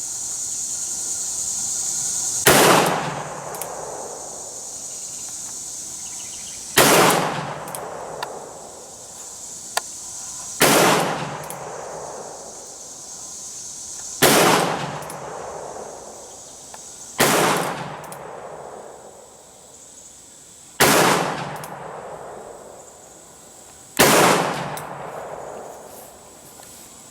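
Ruger Single-Seven .327 Magnum revolver fired seven times, one shot every three to four seconds, each shot echoing briefly.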